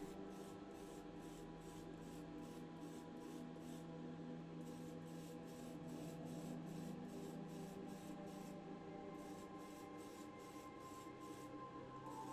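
Quiet background music: sustained chords under a soft ticking beat about three times a second.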